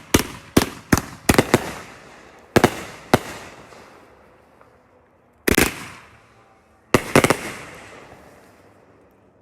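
A consumer firework cake, the 'Vintage', going off: a run of sharp bangs, some in quick pairs and triples, each with a fading echo. There is a burst of about seven bangs in the first second and a half, a few more around three seconds in, and further bangs at about five and a half and seven seconds.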